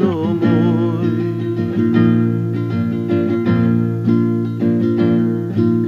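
Acoustic guitar playing chords as an instrumental passage, with no singing over it.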